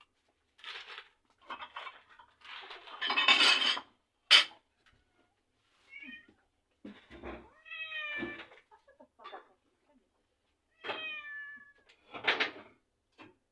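Domestic cat meowing several times, short calls that fall in pitch, in the second half. A louder burst of noise comes about three seconds in.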